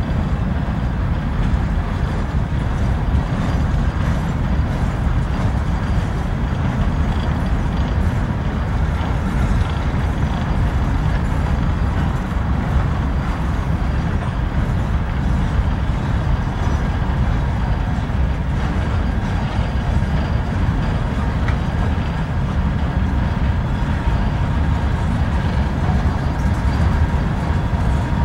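Steady low rumble of a train of open-top hopper cars rolling past, shoved by two diesel locomotives at the rear.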